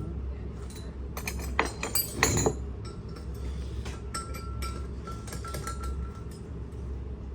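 Small metal parts and hand tools clinking and tapping during reassembly of a water pump and motor, with irregular sharp knocks, a cluster about one to two seconds in, and short metallic rings in the middle.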